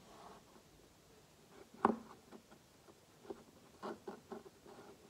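Hands handling a small gingerbread house on a table, pressing decorations onto its biscuit roof: light clicks, taps and scrapes, with a sharper tap about two seconds in and a few more near the end.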